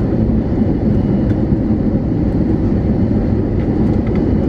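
Airbus A320neo cabin noise: a steady, even rumble of engines and airflow, heavy in the low end.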